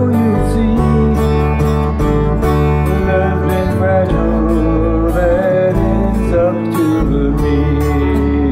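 Acoustic guitar and electric keyboard playing a slow song together, with steady low notes and a wavering melody line above.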